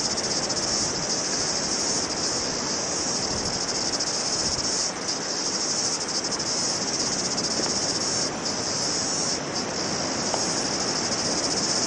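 A steady, high-pitched insect chorus that dips briefly a few times, over wind noise on the microphone.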